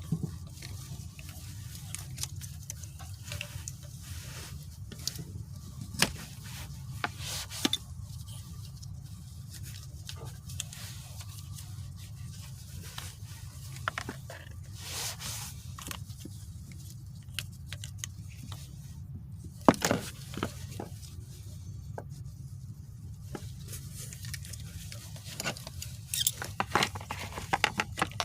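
Hand work on small parts: scattered clicks, taps and short scrapes, with a few sharper knocks about 20 seconds in and a cluster of clicks near the end, over a steady low hum.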